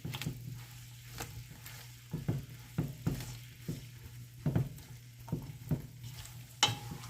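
Plantain and onions frying in hot palm oil, a faint sizzle with a utensil stirring and knocking against the pot at irregular moments, roughly once a second. A steady low hum runs underneath.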